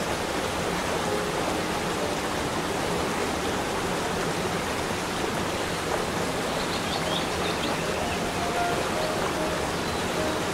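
Small waterfall cascades on a rocky mountain creek, the water rushing and splashing in a steady, even roar.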